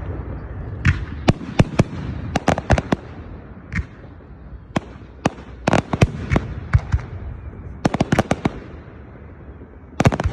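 Aerial fireworks bursting: an irregular run of sharp bangs, some coming in quick clusters, over a low rumble.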